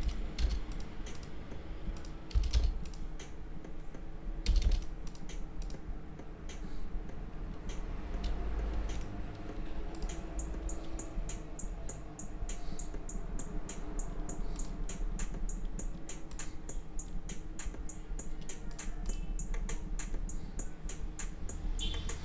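Irregular clicking and tapping of a computer mouse and keyboard, close to the microphone, over a steady low hum. From about ten seconds in, a faint even ticking runs under the clicks.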